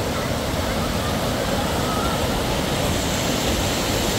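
Mountain stream rushing over small rocky cascades: a steady, unbroken rush of water.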